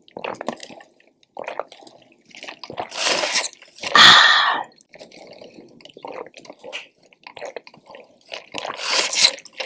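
Drinking soda through a straw: sipping and swallowing with wet mouth sounds, broken by loud breathy exhales about three and four seconds in and again near the end.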